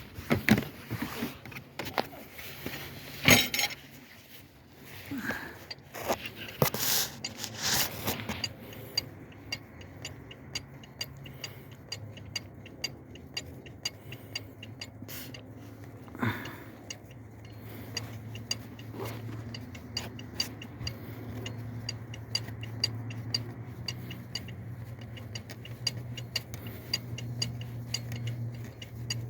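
Metal clinks and scraping for several seconds, then a steady run of quick, evenly spaced ticks over a low steady hum.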